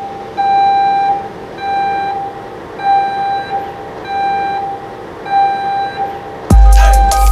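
A string of censor-bleep tones: one steady mid-pitched beep repeated in long and short beeps, spaced unevenly like Morse code, over a faint hiss. Near the end, a hip-hop drum beat with heavy bass kicks in.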